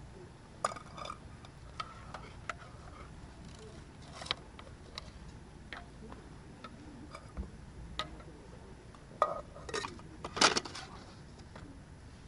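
Scattered clinks and knocks of camp cookware on a folding aluminium table: a spoon against an enamel mug and a hot sandwich maker being handled and opened. The loudest clatter comes about nine to eleven seconds in.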